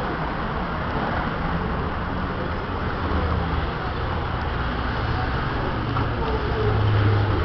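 Steady city street noise: traffic rumble, with a low engine rumble swelling near the end.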